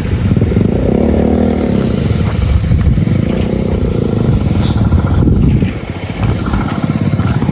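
Motorcycle engine running as the bike rides along, with road and wind noise and some clatter. The engine sound drops briefly about six seconds in, then picks up again.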